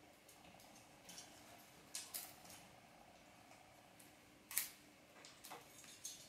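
Near silence with a few faint clicks and light handling sounds from film being fed by hand onto the lower sprocket of a Meopta Optilux 85103 cine projector, the sharpest click about four and a half seconds in. A faint steady hum lies underneath.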